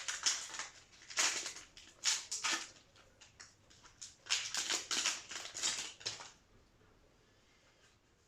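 Yu-Gi-Oh trading cards being slid and flipped through by hand, in a series of papery swipes and rustles that stop about six seconds in.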